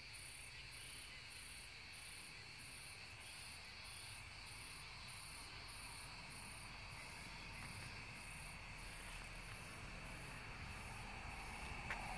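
Crickets chirping at dusk: a steady, faint, high pulsing trill of about two chirps a second over a continuous high insect drone.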